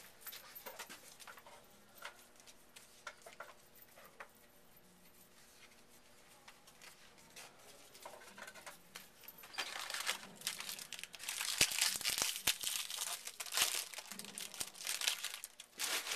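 Card-pack wrappers crinkling and tearing as football card packs are opened by hand. For the first two-thirds there are only soft rustles and light ticks of cards being handled. From about ten seconds in, the crinkling grows much louder and denser.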